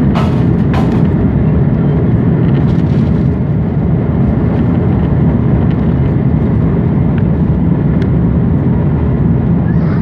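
Airbus A330-300 jet airliner's engines and airflow making a steady, loud rushing roar during take-off. A few sharp clicks come within the first second.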